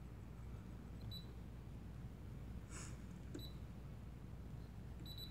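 Brother PE770 embroidery machine's touchscreen giving short, high beeps as its keys are pressed: one about a second in, another past the midpoint, and a quick run of beeps near the end. There is a brief soft rustle a little before the midpoint.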